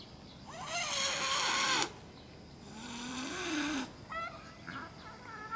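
Red tabby cat yowling at another cat in a territorial standoff: a long wavering yowl, then a lower drawn-out moan, then a few short higher cries near the end.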